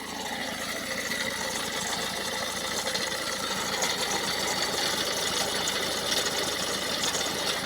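Ford Focus MK2 1.6 TDCi four-cylinder diesel engine idling steadily with a rattle, which the owner suspects comes from a worn engine mount on the left side. He has no fault codes and no oil or coolant trouble.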